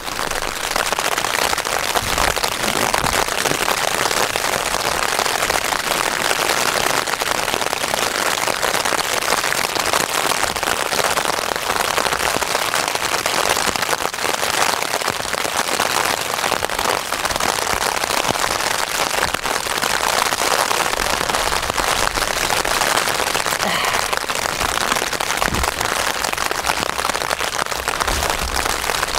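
Rain falling in a steady, dense patter of individual drop hits during a mountain thunderstorm.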